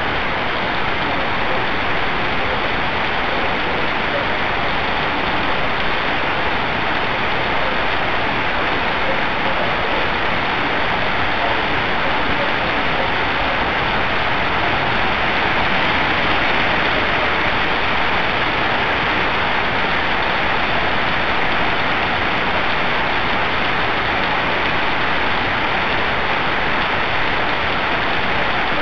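Heavy rain pouring steadily onto a street, an even hiss that holds at the same level throughout.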